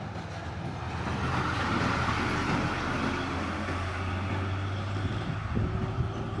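A heavy vehicle's engine running with a low, steady drone as it passes on the road, loudest from about one to three seconds in.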